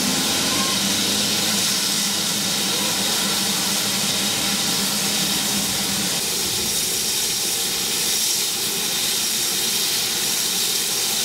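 BR Standard Class 4 2-6-4 tank locomotive 80002 standing in steam, letting off a steady hiss of steam.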